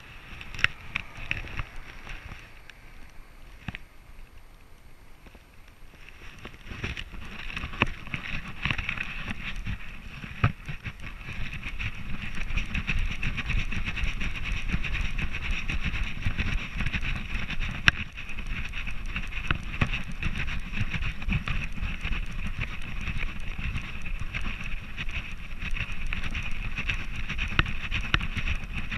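Rubbing and jostling noise from an action camera strapped to a border collie's harness as the dog moves, with small knocks throughout. It grows louder about seven seconds in and stays that way.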